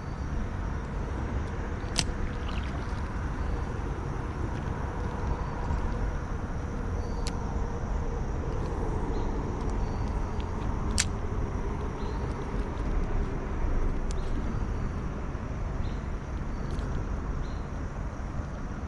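Steady low outdoor rumble, with three sharp clicks about two, seven and eleven seconds in.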